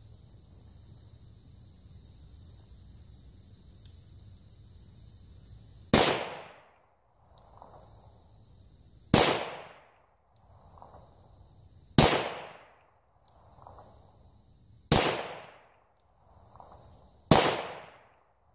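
Five shots from a Rossi 971 .357 Magnum revolver, roughly three seconds apart, each a sharp report that trails off quickly. The rounds are handloads of 3.5 grains of Clay Dot shotgun powder, the lightest charge in the ladder. Crickets chirp steadily between shots.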